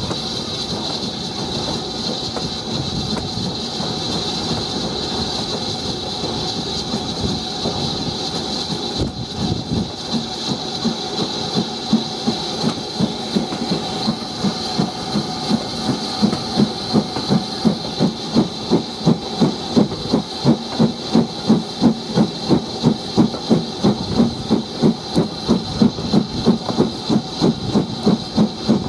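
BR Standard Class 4 2-6-4T two-cylinder steam tank locomotive under way, its steady steam hiss joined about midway by an even exhaust beat that grows stronger and more marked towards the end.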